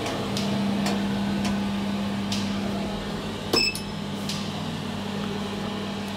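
SMW traction elevator car travelling in its shaft, giving a steady hum with a low tone that strengthens just after the start and eases after about three seconds. Faint clicks come through it, with one sharp click about three and a half seconds in.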